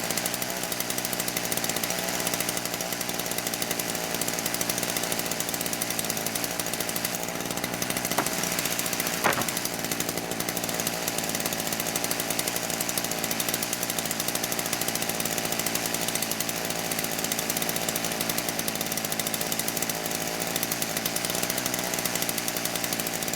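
Chainsaw running steadily, cutting slab wood into firewood lengths. There are two brief sharp knocks about eight and nine seconds in.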